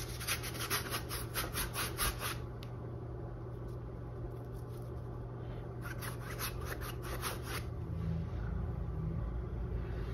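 Bristle paintbrush scrubbing and dabbing acrylic paint onto a stretched canvas in quick, short, scratchy strokes, about four or five a second. The strokes come in two spells, over the first two seconds and again about six seconds in, over a steady low hum.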